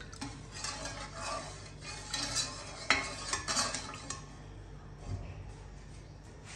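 A spatula stirring and scraping milk in a metal saucepan, a run of short strokes against the pan that stops about four seconds in.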